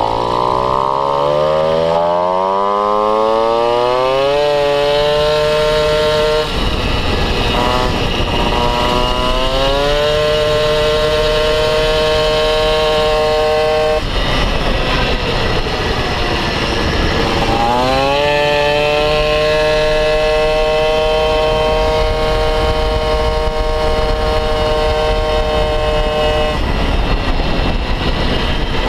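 Tuned MBK 51 moped's single-cylinder two-stroke engine with an expansion-chamber exhaust, run at full throttle: its pitch climbs quickly, then holds at a long steady note while the variator keeps the revs up, falls away as the throttle closes, and does this three times. The flat, held pitch under acceleration is the lightened variator holding the engine near the 9300 rpm it was set for.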